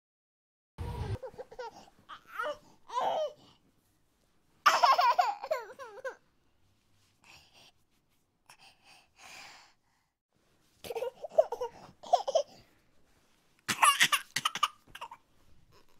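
Kitten crying loudly in repeated bouts of wavering mews, with quieter gaps between them: a hungry kitten crying as it tries to nurse.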